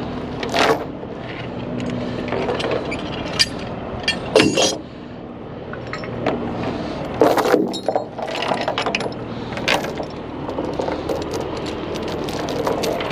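Tie-down chains and binders being handled: sharp metal clanks and clinking rattles, several of them, over a steady low background.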